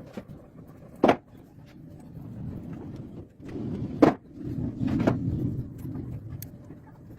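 Three sharp knocks, about a second in, at four seconds and at five seconds, over a low uneven rumble.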